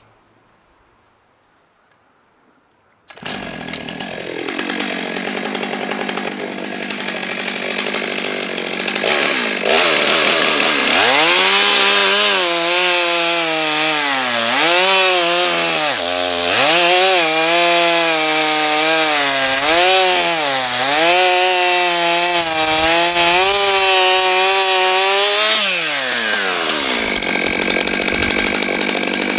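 Stihl MS 661 C-M chainsaw, a 91 cc two-stroke, starting about three seconds in and running, then at full throttle cutting through hard wood, its engine pitch dipping and recovering again and again as the chain bites. Near the end the throttle is released and it drops back to idle.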